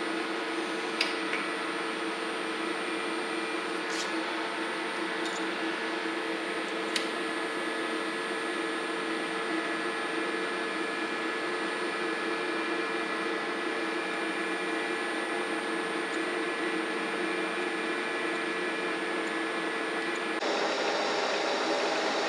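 Steady hum of a lathe's motor running, with a few light clicks as a small part in the collet is handled.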